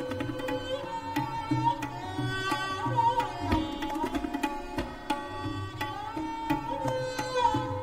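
Background instrumental music in Indian classical style: a plucked string instrument playing sliding melodic notes over a steady hand-drum rhythm.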